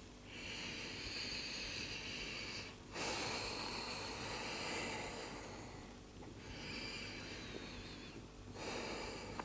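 A woman breathing slowly and deeply, about two full breaths in and out, each phase an airy rush of two to three seconds with a short pause between.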